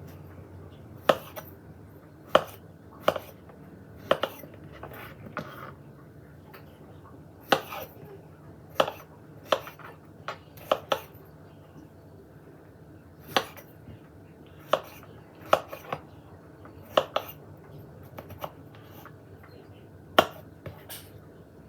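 A kitchen knife cutting strawberries into wedges, the blade knocking sharply on the cutting board with each cut, about twenty knocks at an uneven pace, one every second or two.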